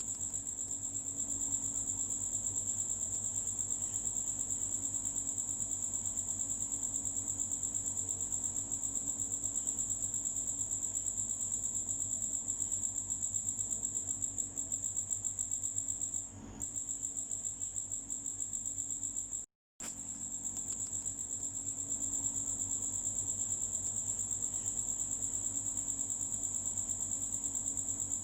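Cricket chirping continuously: a steady high-pitched trill of rapid, even pulses, broken by a brief gap about two-thirds of the way through.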